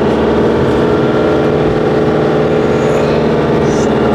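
Motorhome engine running at a steady pitch as the vehicle crawls along.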